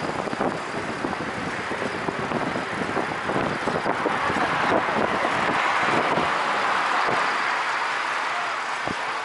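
Steady rushing wind and tyre noise from riding a bicycle along a paved road, swelling a little in the middle, with many small knocks and rattles from the bike and the handheld or mounted camera.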